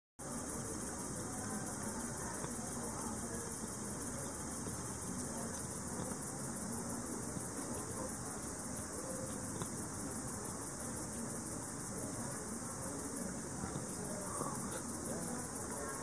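Speckled bush cricket (Leptophyes punctatissima) singing: an even, rapid train of short soft ticks that breaks off briefly about thirteen seconds in, then resumes.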